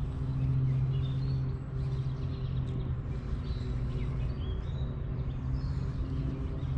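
A steady low motor-like hum, with small birds chirping now and then over it.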